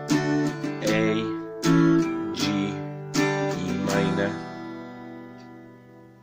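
A guitar picked with a plectrum plays a run of chords, struck roughly every half to three-quarters of a second. The last chord, struck about four seconds in, rings on and fades away.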